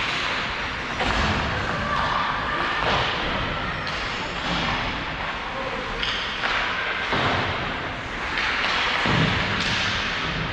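Hockey game play in a rink: a run of thuds and knocks over a steady, noisy scraping wash.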